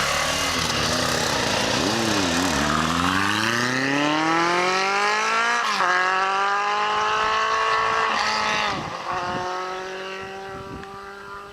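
Motorcycle engine accelerating through the gears. Its pitch climbs steadily and drops briefly at two gear changes, and the engine then fades away into the distance.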